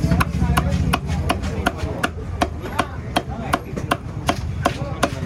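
Knife chopping a stingray on a chopping block: quick, sharp strokes, about three a second, over a steady low hum.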